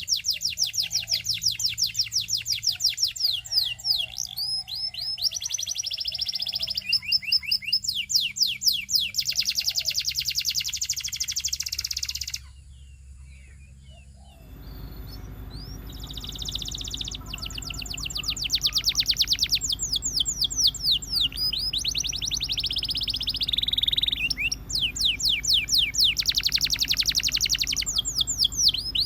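Domestic canary singing, in fast trills of rapidly repeated high notes. The song breaks off about twelve seconds in, goes quiet for about two seconds, then carries on.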